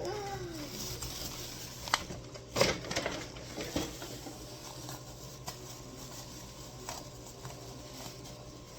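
A few light clicks and knocks from handling food packaging, bunched about two to four seconds in, then quiet handling noise.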